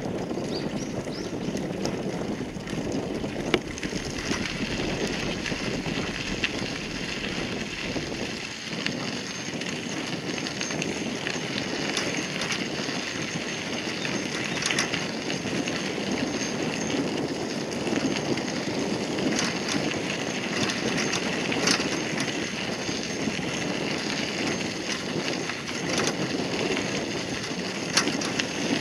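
Bicycle riding over a sandy gravel path: a steady crunch of tyres with occasional clicks and rattles. There is wind rumble on the microphone for the first several seconds.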